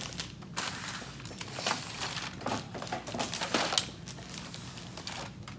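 Foil-lined plastic cookie sleeves crinkling and rustling as they are handled, in irregular bursts with sharp crackles, the loudest a little before four seconds in.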